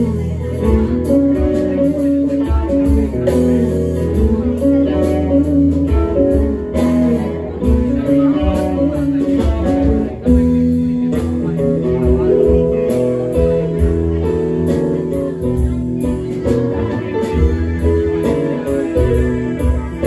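Live rock band playing an instrumental passage: electric guitar lines over bass, drums and keyboard.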